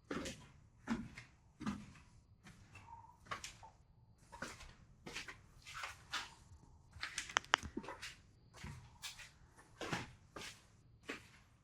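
Footsteps walking at a steady pace, about one step every three-quarters of a second, with a quick run of sharp clicks about seven seconds in.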